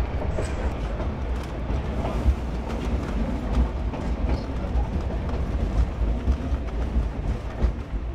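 Narrow-gauge Durango & Silverton passenger train rolling along the track, heard from aboard: a steady low rumble with irregular clanks and wheel clatter.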